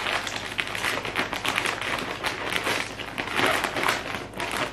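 Shipping packaging rustling and crinkling as a mailed package is opened by hand, a dense run of quick crackles.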